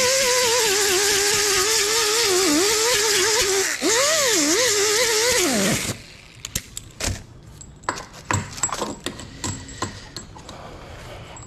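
Air-powered mini grinder with a 24-grit disc grinding a motorcycle fender down to bare metal: a loud high whine whose pitch wavers with the load, dipping and swooping before it shuts off about six seconds in and winds down. Then scattered light metallic clicks and knocks.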